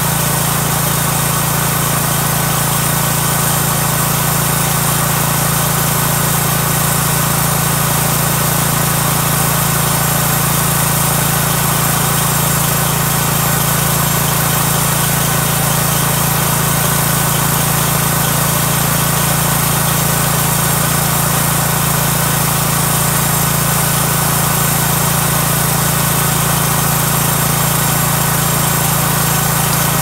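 A homemade sawmill's small engine running steadily at an even speed, with no change in pitch or loudness.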